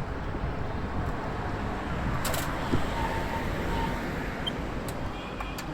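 Steady street traffic and road noise with a low rumble, heard while riding along a city road.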